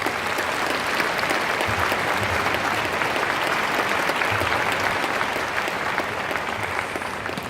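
A congregation applauding as the mayor is called up to speak, building at once and thinning out near the end.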